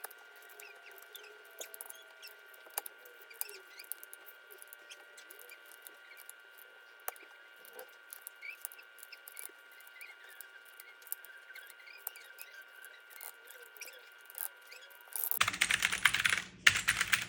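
Keys of a mechanical keyboard fitted with new keycaps. For most of the stretch there are faint, scattered clicks; then, a little over 15 seconds in, comes loud rapid typing that breaks off briefly and starts again.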